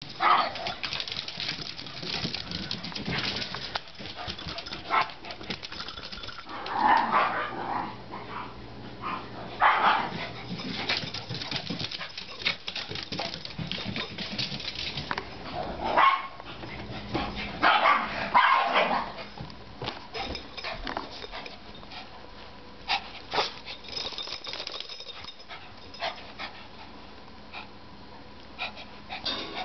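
Small dogs, a Lhasa Apso and a Cairn terrier, barking during rough play, with scuffling and clicking in between. The loudest barks come in the first twenty seconds; after that it is quieter.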